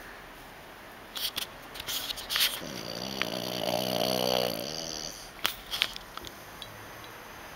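A dog snoring in its sleep: one long, rasping snore about three seconds in, with a few short clicks and snuffles before and after it.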